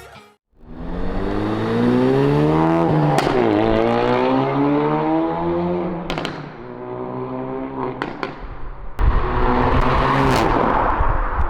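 Ford Focus RS Mk3's turbocharged 2.3-litre four-cylinder, Mountune-tuned, accelerating hard through the gears. The engine note climbs, drops at an upshift about three seconds in and climbs again, with a sharp crack at each shift. It goes loud again on the throttle about nine seconds in.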